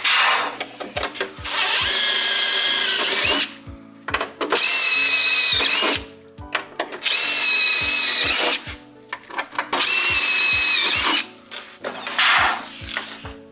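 Cordless drill boring through a snowmobile's aluminium tunnel, run in four spells of about two seconds each with short pauses between, a steady high motor whine in each spell. Background music with a regular beat underneath.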